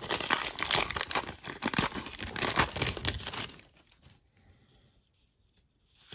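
Wrapper of a 1991-92 Score hockey card pack being torn open and crinkled by hand: a dense crackling that stops about three and a half seconds in.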